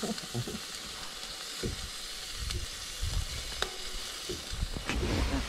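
Sausages sizzling on a small portable gas grill, a steady hissing fry, with a couple of light clicks as they are turned on the grate.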